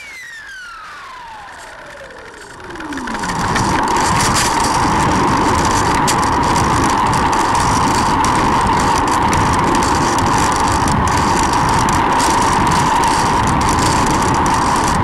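A pitched sound slides steeply down over the first three seconds. Then a loud, steady rushing noise with a strong midrange hiss takes over: the wind and motor noise of a small electric flying-wing model plane in flight.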